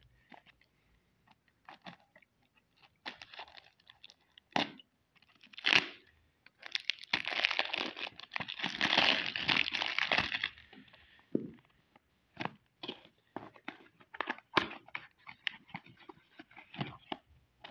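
Cellophane wrap on a cardboard perfume box being slit with a small blade and torn off: scattered crackles and sharp taps, with a dense stretch of crinkling and tearing plastic film from about seven to ten seconds in. Near the end come lighter clicks and rustles as the cardboard box is handled and opened.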